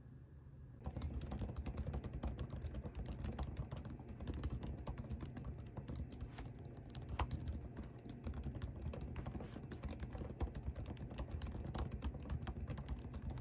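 Typing on a laptop keyboard: a fast, irregular run of light key clicks that starts about a second in.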